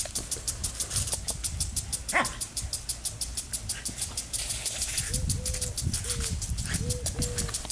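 Impact lawn sprinkler ticking rapidly and evenly, about six ticks a second, as its arm drives the jet around. Dogs bark and yip over it, with a sharp yelp about two seconds in and a run of short calls near the end.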